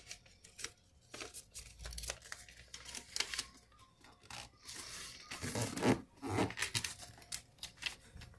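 A square of origami paper being folded and creased by hand: crisp rustling and crinkling, with fingers rubbing along the creases as the paper is pressed flat. The sound is busiest about five to six seconds in.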